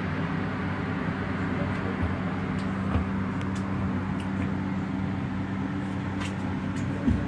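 A steady low mechanical hum with an even rushing noise, like running ventilation machinery, broken by a few soft thumps about two, three and seven seconds in.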